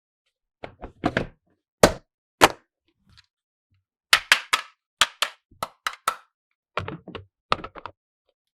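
Hard plastic toy pieces clicking and knocking as they are handled and set down, one sharp click at a time: a few in the first two and a half seconds, a pause, then a run of about a dozen more.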